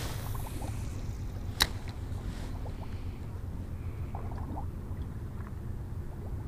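Low, steady rumble of a fishing boat sitting on the river, with one sharp click about a second and a half in and a few faint small ticks.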